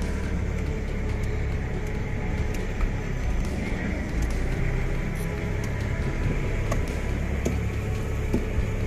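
Fishing boat's engine running steadily under way, a constant low drone mixed with the noise of water and wind.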